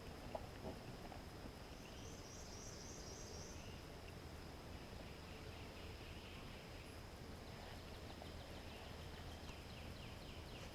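Faint outdoor ambience of birds calling now and then, with a steady high insect hum and a short high trill about two seconds in.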